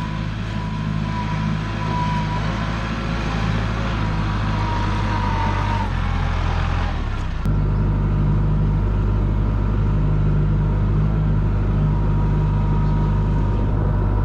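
Farm tractor engine running steadily, a continuous low engine hum; its note shifts abruptly about seven and a half seconds in.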